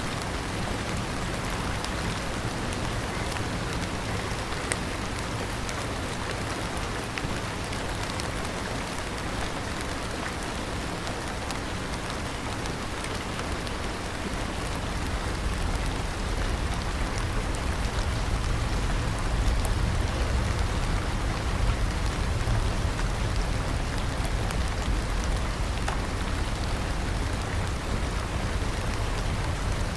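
Steady rain falling, with scattered drops ticking over an even hiss. A low rumble swells about halfway through and holds to the end.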